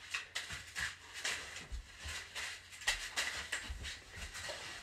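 Scraps of paper rustling and crackling in short, irregular bursts as they are grabbed off the floor and gathered into a wicker basket, with a few dull low thumps of movement on the carpet.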